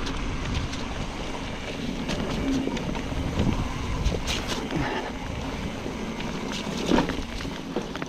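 Trek Fuel EX 9.8 full-suspension mountain bike riding down a wet, muddy trail: tyre noise with scattered rattles and knocks from the bike over rough ground, and wind rumbling on the microphone.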